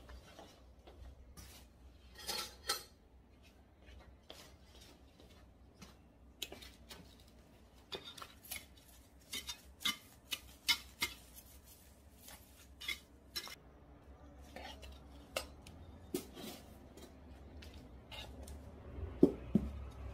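Pruning shears snipping the branches of a variegated ficus: sharp metallic clicks and snips at irregular intervals, some in quick clusters. A louder knock comes near the end.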